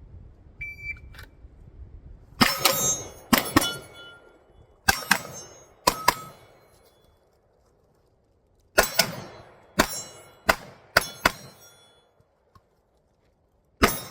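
Shot timer beep, then a string of pistol shots in quick pairs and singles, with steel targets ringing from hits. The shots pause for about two seconds midway, then resume.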